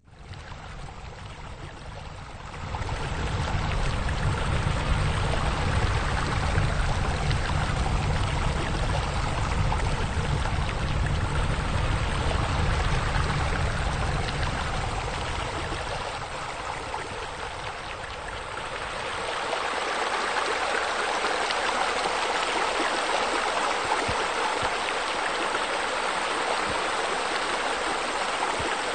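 Running water from pool water features, splashing and rushing steadily; it starts abruptly. A deep rumble under it fades out about two-thirds of the way through, leaving a brighter splash.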